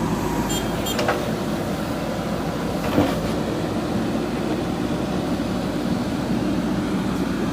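JCB backhoe loader's diesel engine running steadily, with two short knocks, about one and three seconds in.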